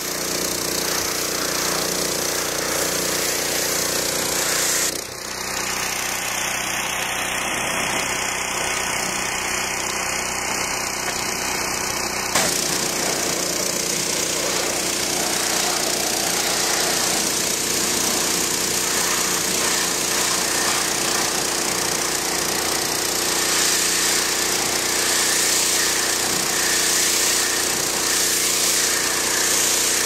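Engine of a trailer-mounted high-pressure water blaster running steadily, with the hiss of the water jet spraying onto a corrugated iron roof. The level dips briefly about five seconds in.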